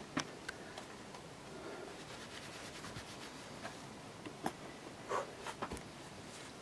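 Scattered short scuffs and taps of a climber's hands and rubber-soled climbing shoes on rock, with a few sharper clicks, over a faint steady hiss.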